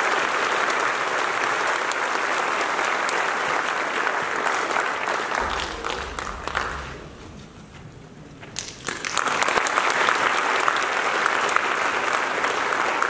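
Audience applauding, a dense patter of many hands clapping, which dies down to a brief lull about halfway through and then picks up again.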